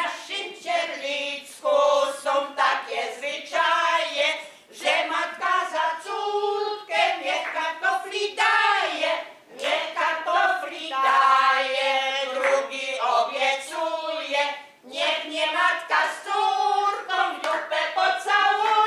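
A small group of women singing a song together, unaccompanied.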